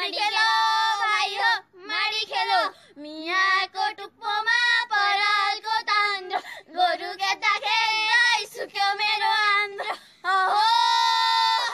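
High female voices singing a traditional Nepali threshing song, with long held, wavering notes broken into short phrases.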